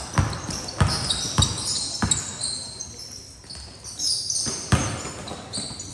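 Basketball dribbled on a hard court: four bounces about two-thirds of a second apart, a pause, then one more bounce near the end. Short high sneaker squeaks come and go throughout.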